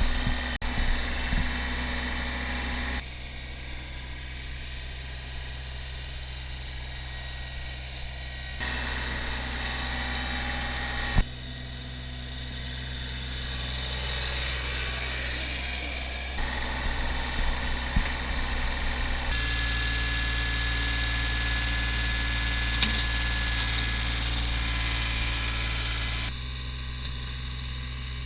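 An engine running steadily with a low hum, in several stretches that change abruptly in level and tone.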